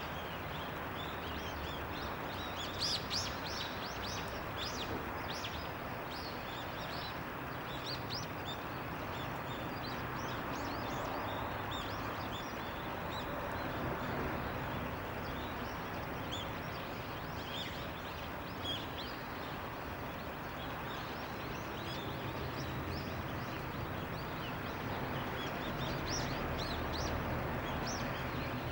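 Daurian redstart giving short, high calls in scattered runs, busiest a few seconds in and again near the end, over steady background noise.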